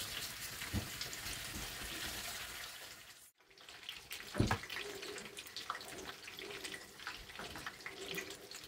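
Spring rolls deep-frying in a wok of hot oil: a steady hiss that drops out briefly about three seconds in, then returns quieter with small crackles and one sharp knock soon after.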